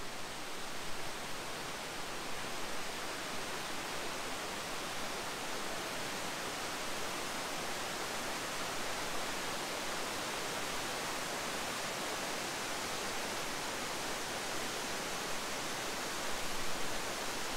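Waterfall rushing steadily, whitewater pouring over rock in an unbroken hiss.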